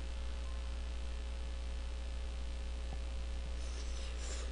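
Steady low hum with faint room noise, and a brief soft hiss near the end.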